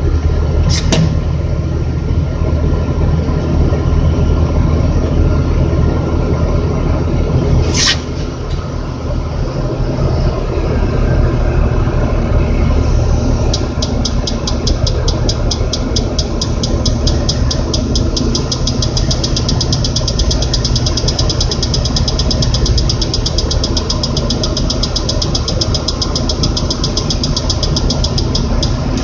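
Crane's engine running steadily, with a sharp click about a second in and another about eight seconds in. From about halfway on, a rapid even ticking, about four a second, runs alongside the engine.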